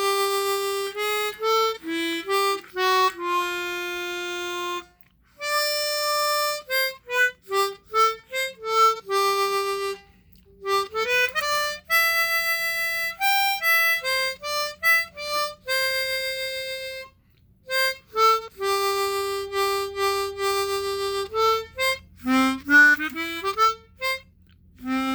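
Hohner Chrometta chromatic harmonica playing a short tune: a melody of single notes, some held and some moving quickly, in phrases with brief breaks between them.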